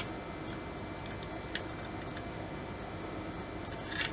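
A few small, sharp clicks from needle-nose pliers and a rotary encoder's plastic and metal parts as the encoder's top body is pressed back onto its base, the loudest a short cluster of clicks near the end, over a steady faint hiss.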